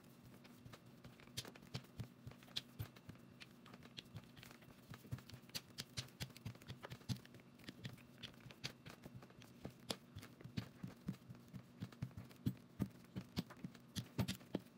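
Plastic rolling pin rolling out bread dough on a silicone baking mat, with hands pressing the dough: faint, irregular clicks and taps, several a second, coming thicker in the second half.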